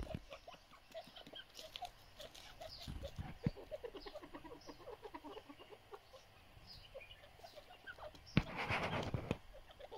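A pair of grey francolins (grey partridges) making soft, short clucking notes, over and over, while they feed. Near the end comes a sharp knock, followed by about a second of rushing noise.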